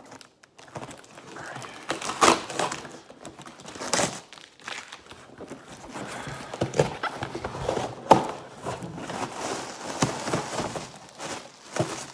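Cardboard shipping box being torn open by hand: packing tape ripping and flaps tearing and bending, with packing material rustling and crinkling. Irregular, with sharp tears about two, four and eight seconds in.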